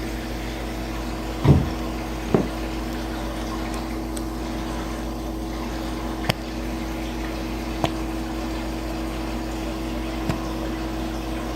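Aquarium water pump running with a steady hum, with a few sharp clicks and knocks scattered through; the loudest is a thump about one and a half seconds in.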